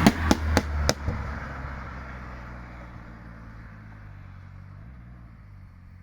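Turbocharged 1.3-litre 8-valve VW Polo 86c engine coming off the throttle with four sharp exhaust pops in the first second. Its low engine note then fades away steadily.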